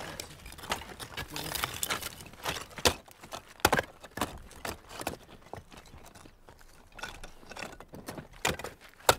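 Porous lava stones knocking and clacking together at irregular intervals, with scraping and rattling of loose rubble, as gloved hands wedge and pack stones into a dry-stone wall. The sharpest knocks come about three, three and a half, and nine seconds in.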